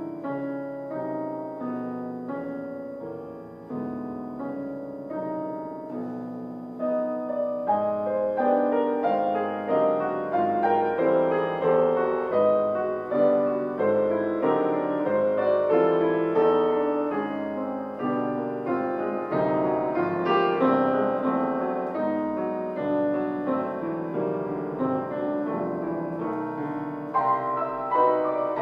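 Grand piano played solo: a classical sonata in a continuous flow of notes and chords, growing louder about seven seconds in.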